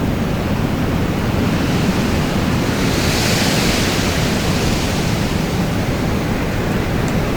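Storm wind blowing steadily with a heavy low rumble, a gust swelling into a louder hiss about three seconds in and easing off again.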